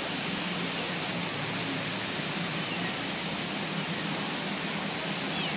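A fast, swollen stream rushing over stones, a steady hiss of water, with the low hum of a backhoe loader's engine running under it. A cat meows faintly once or twice, the last near the end.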